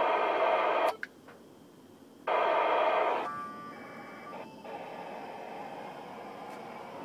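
FM radio speaker of a Kenwood TM-D710A tuned to 145.825 MHz, the ISS packet downlink, giving a loud raspy hiss of static and packet noise. The hiss cuts off abruptly about a second in and comes back for about a second. It then drops to a quieter hiss with a short steady tone.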